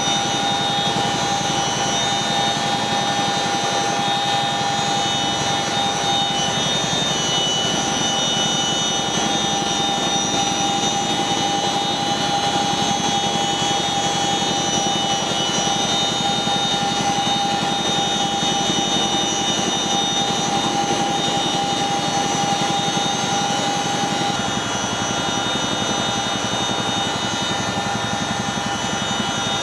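Boeing CH-47 Chinook tandem-rotor helicopter running steadily: a high whine from its twin turboshaft engines over a fast rotor chop.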